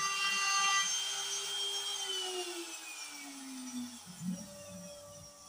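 CNC router spindle whining at a steady speed, then winding down with a falling pitch after about two seconds as the carving of the MDF panel ends. A short, steady, lower hum with a couple of low thumps follows near the end.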